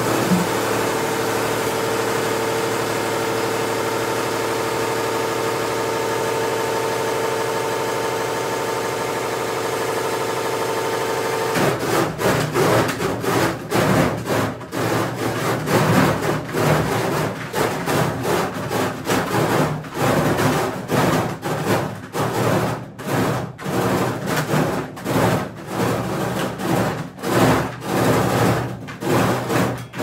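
Top-loading washing machine spinning hard with a steady motor whine. About eleven seconds in this breaks into rapid, irregular banging and rattling as the spinning tub knocks against the cabinet and works loose.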